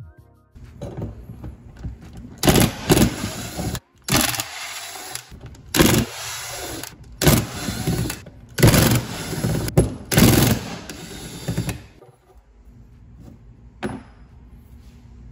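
Power driver spinning out the Allen bolts that hold bicycle disc-brake rotors onto threaded hubs, in a series of short bursts, then a quieter stretch near the end.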